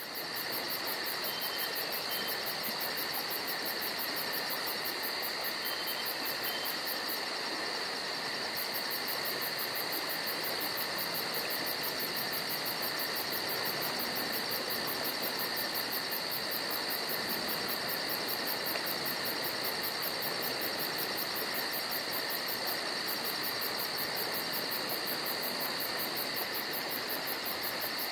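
Steady insect chorus, a continuous high trill with a fast, even pulsing above it, over a soft even hiss.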